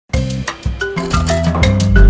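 Upbeat intro music: a rhythm of struck percussive notes over a bassline, starting suddenly right at the beginning.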